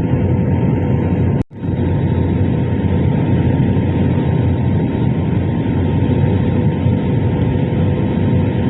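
Steady airliner cabin noise on final approach: engines and rushing air make a loud, deep rumble with faint steady hums above it. The sound cuts out for an instant about a second and a half in.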